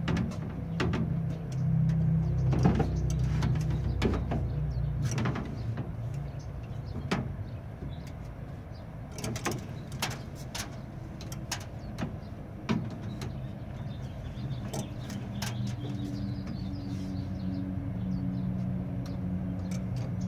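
Knocks, clicks and scrapes of door glass and its window regulator being worked inside a Squarebody C10 door, the regulator turned with locking pliers clamped on its shaft. A low steady hum runs underneath, loudest in the first few seconds.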